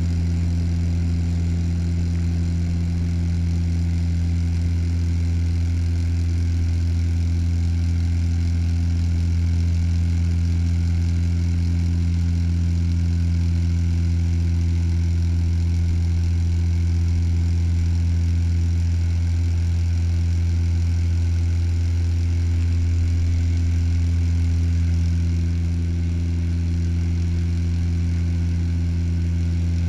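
Turboprop airliner's propeller and engine heard inside the cabin beside the propeller: a steady low drone with a stack of higher hum tones above it, easing slightly near the end.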